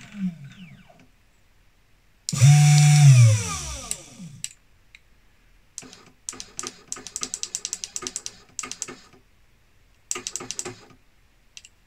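3018 desktop CNC router jogged from its handheld offline controller. A short machine run of about a second and a half is the loudest part, with a whir whose pitch drops as it stops. Then come two runs of rapid, evenly spaced ticks as the axes are stepped in fine adjustments.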